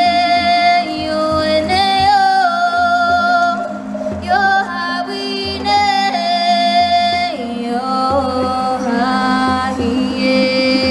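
A woman singing long, held notes that glide between pitches, amplified through a PA speaker, over a steady low drone and low hand-drum beats.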